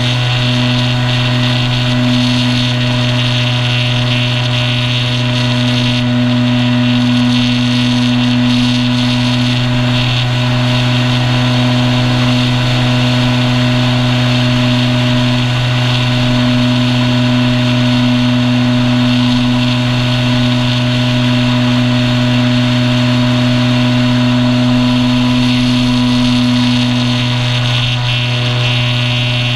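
Electric motor and propeller of an E-flite Apprentice S 15e RC trainer plane in flight, heard from on board: a loud, steady drone with a whine at a constant throttle, over a hiss of rushing air.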